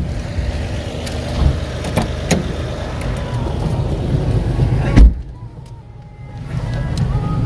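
A vehicle driving along a rough forest road: steady engine and road rumble with scattered knocks and jolts. There is a loud jolt about five seconds in, after which the rumble drops for a moment before building again.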